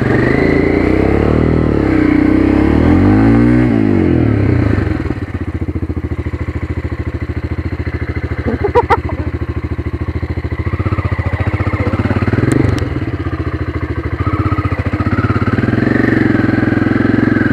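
1999 Aprilia Pegaso 650 Cube's single-cylinder four-stroke engine under way on a dirt trail. The revs rise and fall through the first few seconds, settle to a steadier, lower note, then build again near the end, with a few sharp knocks in the middle.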